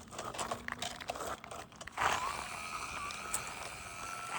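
Small RC rock crawler on rocks: scattered clicks and crunches of tires and chassis on stone, then about halfway the whine of its brushed Injora 050 66-turn motor and gears starts and holds steady, creeping slightly up in pitch.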